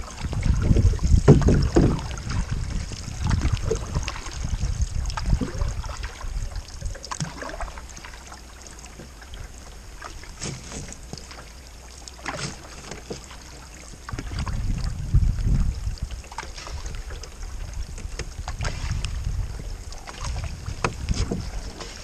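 Water washing and splashing against a canoe's bow as it moves along, heard from low on the bow deck, with scattered sharp clicks. Gusts of wind buffet the microphone, loudest at the start and again about two-thirds of the way through.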